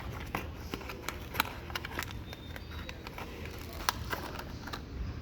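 Condom packaging being handled: irregular sharp clicks and crinkles of the cardboard box and foil wrappers, a few each second, over a low steady hum.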